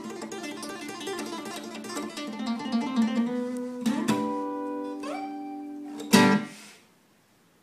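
Acoustic guitar playing: quieter picked notes, then notes sliding up in pitch about four and five seconds in. A final loud strummed chord about six seconds in rings out and dies away, ending the tune.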